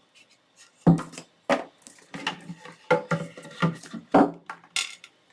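Plastic coloring markers clicking and clacking against each other and the table as they are picked out and handled, a quick series of irregular knocks.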